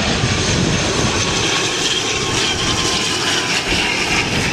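ATR twin-turboprop airliner on short final passing low overhead, its engines and propellers running with a steady drone, heard through heavy rain and wind hitting an umbrella over the microphone.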